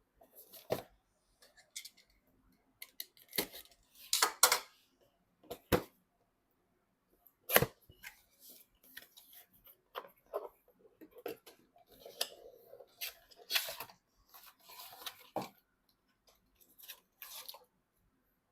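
Computer parts and their packaging being handled at close range: irregular clicks, taps and short rustles, with a few sharper knocks about four and seven and a half seconds in.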